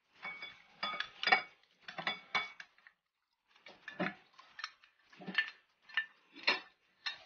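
A glass dish knocking and clinking against the rim of a mixing bowl as cubes of set ube gelatin are tipped and shaken out of it: a quick series of clinks and soft knocks in two runs, with a short pause about three seconds in.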